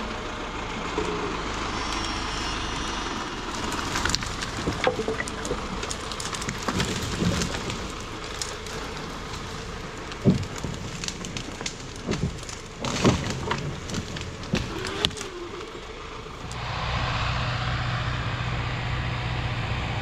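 Zetor Proxima tractor engine running steadily, with irregular sharp cracks and knocks over it through the middle. The engine note gets louder and steadier about sixteen seconds in.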